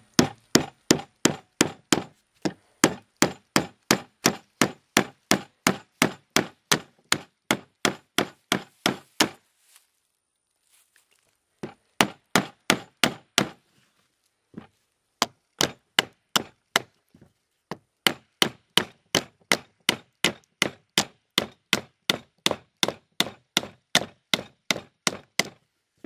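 A hammer with a flashlight taped to it drives 12-penny nails into a pressure-treated 2x4: sharp, ringing strikes at about two and a half a second. There is a pause of a couple of seconds about a third of the way in, then the strikes resume.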